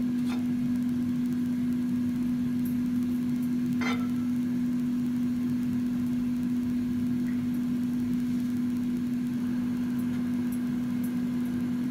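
A steady low hum at one pitch, with a faint haze under it and a couple of light clicks as a spoon pushes melting butter around a nonstick tawa.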